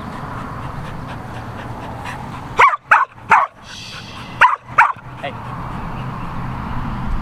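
Australian Shepherd barking: five short, sharp barks, three close together about two and a half seconds in and two more just before five seconds.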